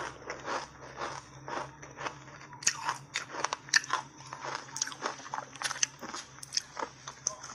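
Soft ice chunks coated in matcha powder being bitten and chewed close to a clip-on microphone: a quick, irregular run of crisp crunches, loudest near the middle.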